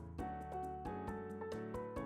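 Background instrumental music with frequent, evenly paced note onsets.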